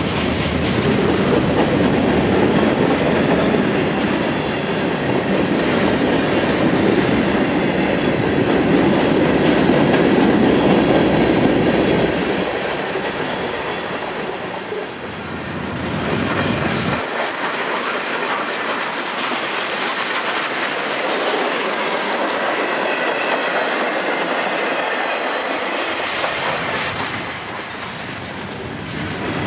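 A freight train's cars rolling past at a grade crossing: the steady rumble and clatter of steel wheels on the rails. The deep rumble fades out about halfway through, leaving mostly the lighter rolling noise.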